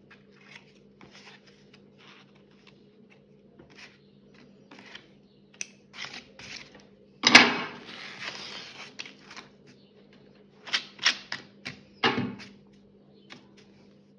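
Scissors snipping through macramé cord fringe in a run of small quick cuts. About seven seconds in, a loud rasp as a strip of paper tape used as a cutting guide is peeled off, followed near the end by a few sharp crackles.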